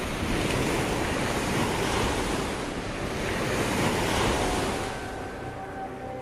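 Sea waves washing in, a steady rush of surf that swells twice and then eases.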